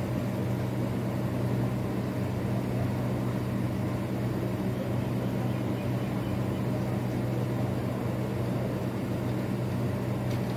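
A steady low mechanical drone from a running engine, even and unchanging throughout.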